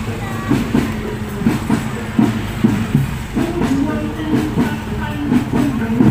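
Bregada soldier-troupe marching music: drums and struck pitched percussion playing an even, repeating march rhythm over a steady low tone.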